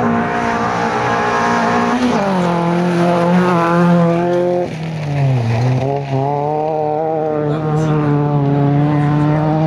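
Racing hatchback's engine at high revs on a dirt autocross track. The engine note drops about two seconds in, dips and climbs back around five seconds in, then holds steady and high.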